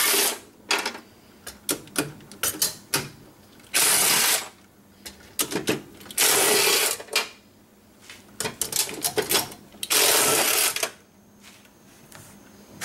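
Cordless power tool spinning a socket to run out bolts, in four short bursts of half a second to a second each, with small metallic clicks and taps of the loosened bolts and socket being handled in between.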